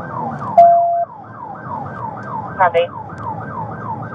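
Police car siren wailing in fast yelp mode, a falling sweep repeating about four times a second. About half a second in, a loud steady beep lasts about half a second, and near the end a brief radio voice says "copy."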